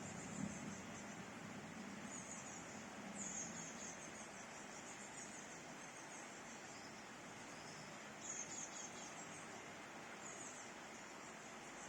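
Steady faint rain hiss, with brief high bird chirps breaking in several times.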